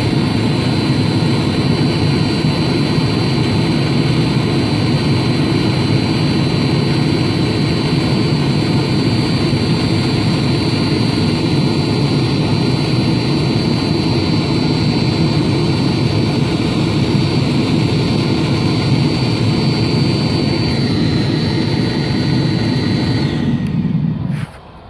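Webasto Thermo Top V diesel heater running with its flame lit: a steady burner and combustion-fan roar with a thin high fan whine. Near the end the whine falls in pitch and the roar cuts off sharply as the heater is switched off.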